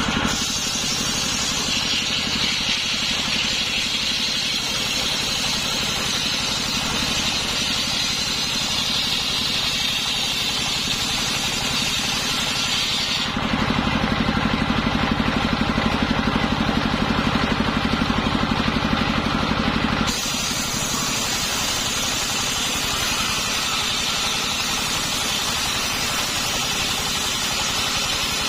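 Engine-driven circular saw running steadily, with a motor note and a high whine. About halfway through, the sound changes abruptly for about seven seconds: the low engine note grows louder and the high whine drops out. Then the earlier sound returns.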